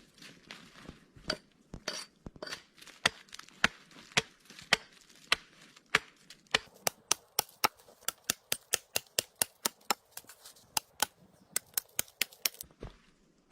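A series of sharp, short knocks, spaced irregularly at first and then settling about halfway into a quicker, even rhythm of about three a second, which stops shortly before the end.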